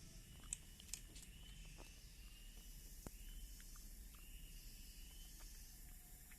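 Near silence with a few faint, sharp clicks of a street cat chewing its snack, over a faint high chirp that repeats about once a second.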